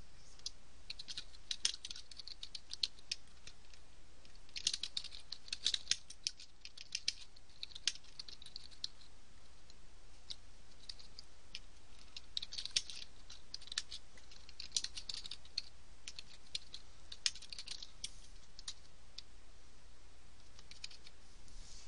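Computer keyboard typing: quick runs of key clicks in several bursts, with short pauses between them, over a faint steady low hum.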